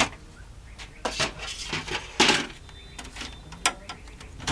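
Irregular clicks, knocks and clatter of hard parts being handled, with a louder clatter about two seconds in.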